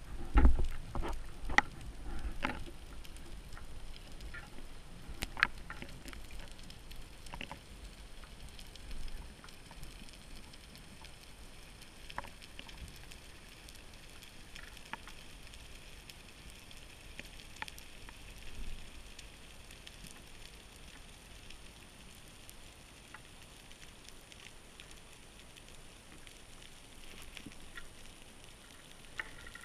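Underwater ambience: a faint steady hiss with scattered clicks and crackles. A low thump and a few sharper knocks come in the first several seconds, then only sparse clicks.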